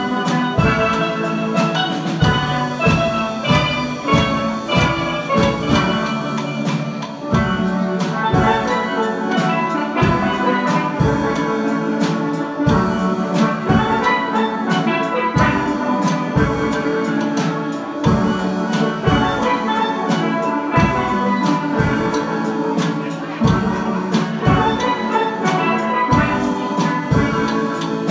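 Steel band playing: steel pans ringing out a melody and chords over a steady drum beat.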